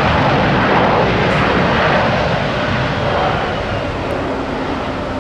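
Engine noise of a passing Frontier Airlines jet airliner, loud and steady, peaking about a second in and slowly easing off.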